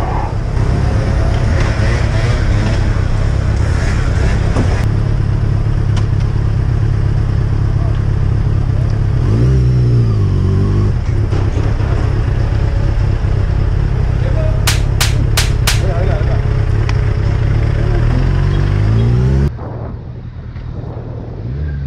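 Motorcycle running on the road with a steady low rumble and road noise. The engine revs rise and fall about ten seconds in and again near the end. Four quick sharp sounds come about fifteen seconds in, and about twenty seconds in the sound suddenly turns quieter and duller.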